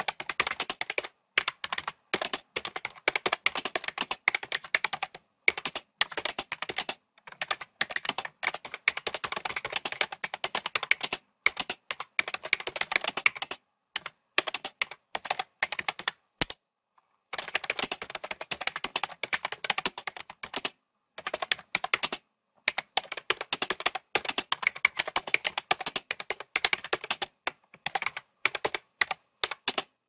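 Typing on a computer keyboard: runs of rapid keystroke clicks broken by short pauses, with a longer pause of about a second around halfway.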